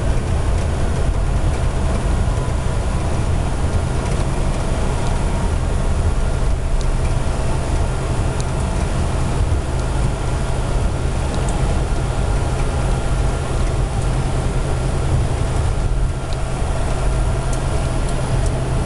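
Steady in-flight cockpit noise of a KC-135 tanker: a constant low engine drone and airflow hiss, with a few steady tones and faint ticks.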